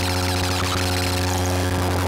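A Eurorack modular synthesizer feedback patch built from Make Noise Maths, a Random*Source Serge Triple Waveshaper and a Flight of Harmony Plague Bearer, with no oscillators. It plays a steady low drone with stacked overtones under a gritty, crackling upper layer of noise.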